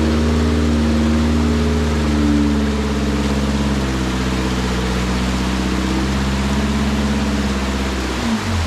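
Off-road rock buggy engine running at low revs, with a brief rise in revs about two seconds in and a dip in the note near the end, over a steady rushing hiss.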